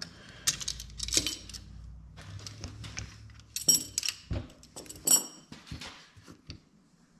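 Small metal parts clinking and knocking as a turbo wastegate and steel V-band clamps are handled and set down on a workbench. A few sharp metallic clinks ring briefly near the middle, over a low hum that stops about four seconds in.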